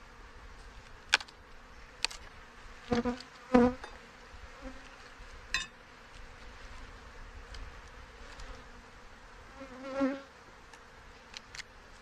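Honey bees buzzing around an open hive, with single bees droning loudly past the microphone a few times, about three seconds in, again just after, and near ten seconds. A few short sharp clicks fall in between.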